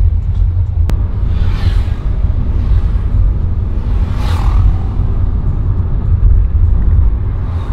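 Steady low rumble of a car driving, heard from inside the cabin, with two brief whooshes of passing traffic, one about a second and a half in and one about four seconds in.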